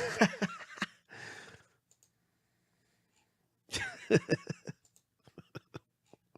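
A man's sigh and short wordless vocal sounds, then a few sharp isolated clicks a little after the middle.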